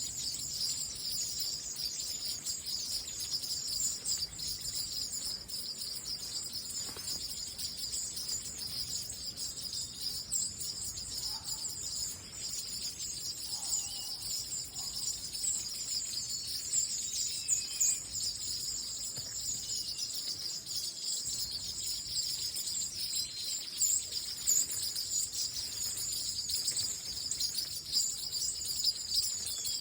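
A flock of small birds chirping and twittering in a bamboo grove as they settle into their roost at dusk, with many short overlapping calls. Under the calls runs a constant high-pitched shrill drone.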